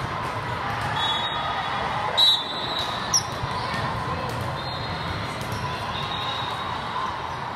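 Volleyball ball struck sharply about two seconds in, with a smaller hit about a second later, over a steady murmur of many voices in a large hall. Sneakers squeak on the court floor now and then.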